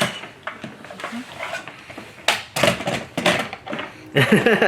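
Scattered plastic clicks and rattles from a toy remote control and its packaging being handled, with a short stretch of voice near the end.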